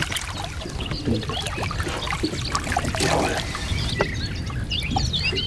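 Water splashing and trickling at the side of a boat as a hooked fish is brought in. Birds chirp near the end.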